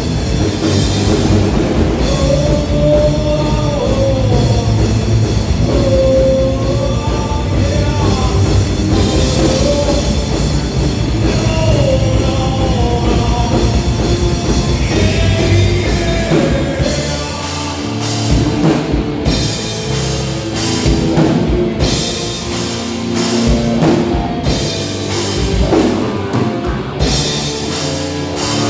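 A live rock band plays electric guitars, bass and a drum kit. A guitar melody with bending notes runs through the first half. From a little past halfway, the band switches to choppy, stop-start accented hits.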